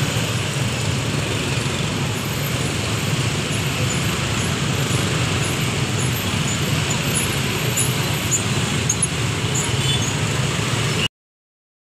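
Motorcycles and cars driving across a level crossing: a steady mix of engine and tyre noise from the passing traffic. It cuts off abruptly near the end.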